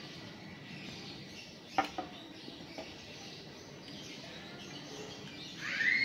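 Arashi Helifan AR 228 mini ceiling fan running with a steady whir. A sharp click comes about two seconds in, and a loud bird chirp rises and falls near the end.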